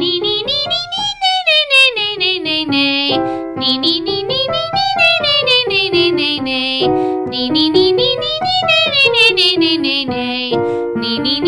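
A woman's singing voice doing vocal warm-up scales over a piano accompaniment. Each pattern climbs and falls back down, about three times in a row, while the piano steps up with each repeat.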